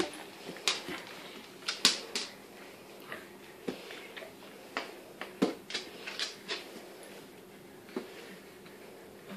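Light, irregular clicks and taps from a basset hound moving about on a hard floor: claws on the floorboards and its metal chain collar.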